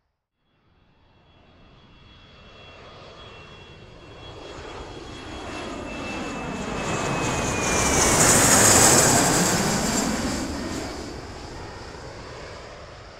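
Jet aircraft flying over. It builds for several seconds, is loudest about nine seconds in with a high hiss, then fades, and a whine falls in pitch as it passes. The sound cuts off suddenly at the end.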